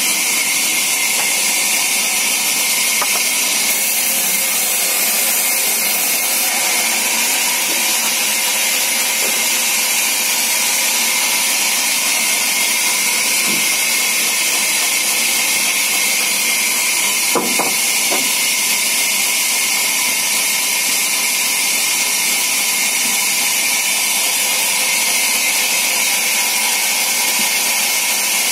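Vertical band saw running and cutting through a log, a steady high hiss with no letup. A couple of short knocks of wood a little past halfway.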